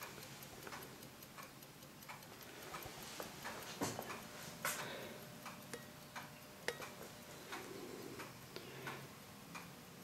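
Chelsea ship's bell clock, from the 1920s, ticking faintly with quick, even ticks. A few louder soft knocks fall in the middle.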